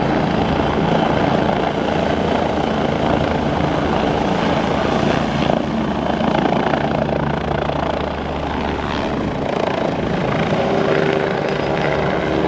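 Helicopter making a low, close flyby, its rotor and engine running loud and steady. A steady whine comes in near the end.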